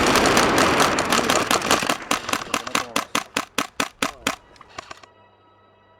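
Gunfire: a dense volley of rapid shots for about two seconds, then separate shots about five a second that thin out and stop a little over four seconds in, leaving a faint steady hum.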